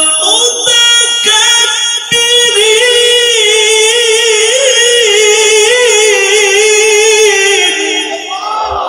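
Male qari reciting the Quran in Arabic in a high, melodic tilawat style: a few short held notes, then one long ornamented note with a wavering pitch, drawn out for about five seconds. It ends near the end in a breathy rush of air.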